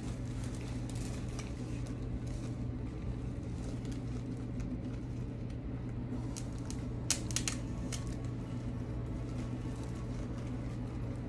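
Rustling and small clicks from artificial rose flowers being handled, with a short cluster of sharp clicks about seven seconds in, over a steady low hum.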